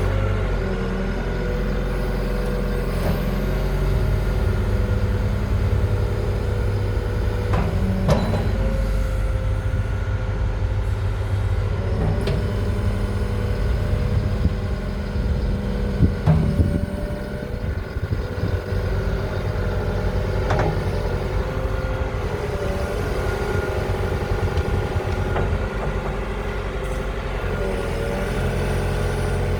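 Perkins diesel engine of a Lonking 84C backhoe loader running steadily, its pitch wavering slightly now and then. A few short knocks sound over it, the loudest about halfway through.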